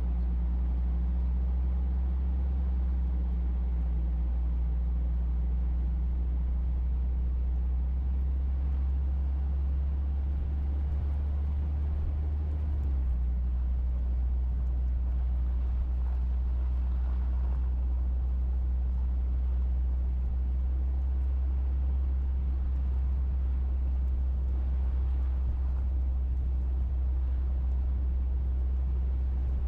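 Steady low-pitched drone or rumble with no breaks, shifting slightly in pitch about 13 seconds in.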